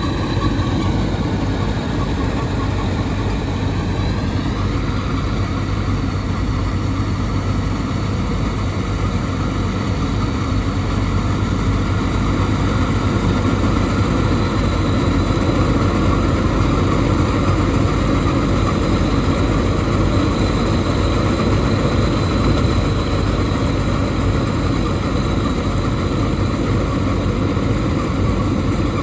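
Mahindra Arjun Novo 605 DI tractor's diesel engine driving a Gahir Nippy45 mini combine harvester attachment, running steadily under load while it cuts and threshes paddy. There is a slight shift in pitch in the first few seconds.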